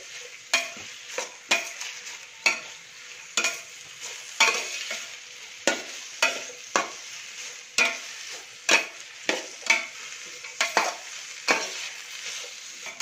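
Sliced onions frying in coconut oil in a stainless steel pot, sizzling steadily as they are sautéed. A metal spatula stirs them, scraping and clinking against the pot a little more than once a second.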